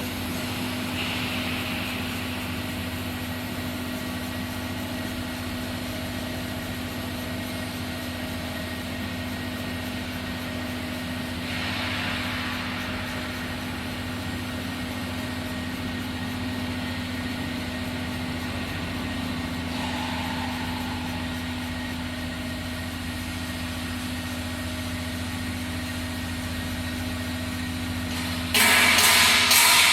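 Vegetable washing machine running with a steady motor hum, with a few brief swells of hiss. Near the end, a much louder, rougher noise cuts in suddenly.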